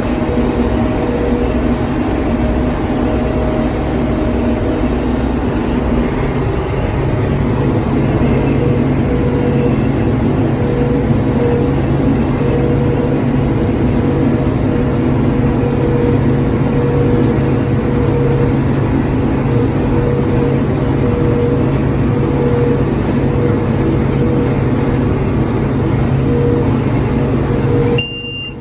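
TYM tractor's diesel engine running steadily under load, driving a Vermeer 504L round baler as it bales hay. Near the end the noise drops suddenly and a high beep starts.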